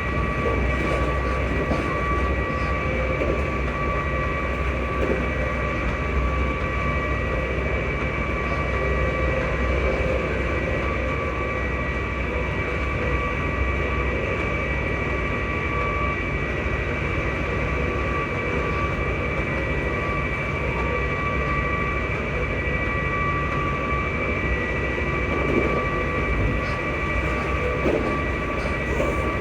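ScotRail Class 334 electric multiple unit running along at steady speed: a steady traction-motor whine made of several fixed high tones over the continuous rumble of the train, the odd motor sound this unit is known for.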